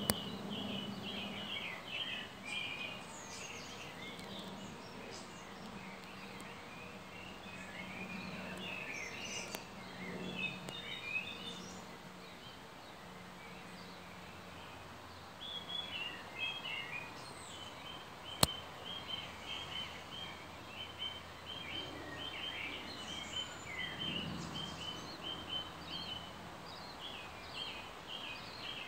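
Garden birds chirping in short calls, with a quick run of rapidly repeated chirps in the second half. A single sharp click breaks in partway through, over a faint low hum.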